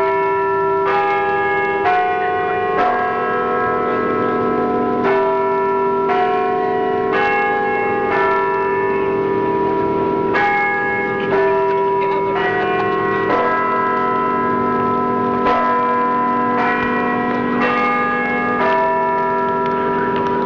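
Church bells in the tower pealing: several bells of different pitch struck in turn, about one stroke a second, each ringing on over a sustained low hum.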